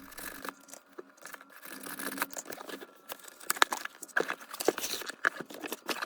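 Packaging being handled, with crinkling and rustling and scattered sharp clicks and taps, more of them in the second half.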